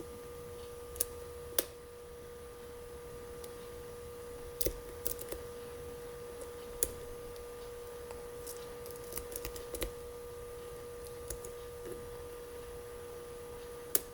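Lock pick and tension wrench working the pins of a five-pin Cupples mortise cylinder: scattered light metallic clicks and ticks, two sharper ones near the start, over a steady faint hum.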